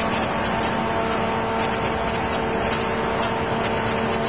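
Steady machinery noise with a constant hum of several pitches that does not change.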